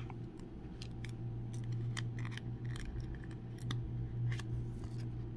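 Light, irregular clicks and scrapes of a rigid plastic card holder being handled in the fingers, over a steady low hum.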